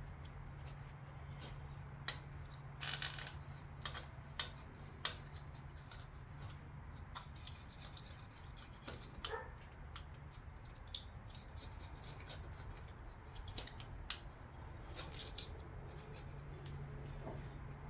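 Metal gasket scraper scraping old intake gasket material and RTV sealant off the intake surfaces of a Chevy 350 small-block: short, irregular scraping strokes, with a longer, louder stretch about three seconds in and a sharp scrape about fourteen seconds in.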